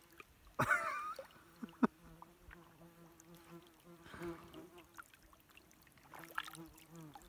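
An insect buzzing in a low drone that comes and goes, with a short wavering call about a second in and a sharp click just after.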